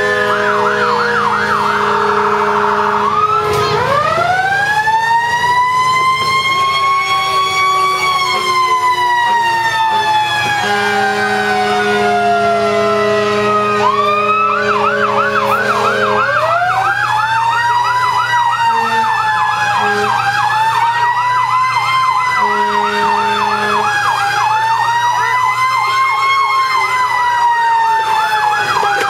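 Fire truck sirens sounding together. One wail rises slowly over a few seconds and falls slowly away, while a faster yelp warbles up and down a few times a second through much of it. A low steady tone also sounds in long blasts.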